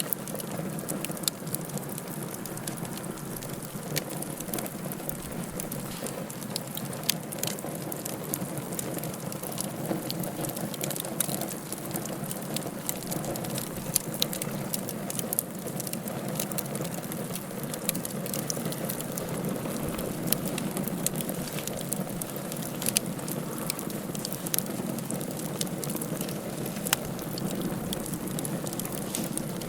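Wood fire crackling in a fireplace: a steady hiss and rustle with frequent sharp pops and snaps scattered throughout.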